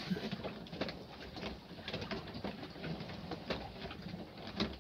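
Cabin of a Hurley 22 sailing yacht under way in a choppy sea: irregular creaks, short low squeaks and knocks from the boat, over the wash of water along the hull.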